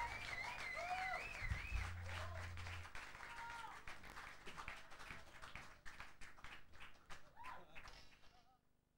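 Audience clapping, cheering and whistling as a live rock song ends, with a last low note ringing out briefly in the first few seconds. The applause fades out near the end.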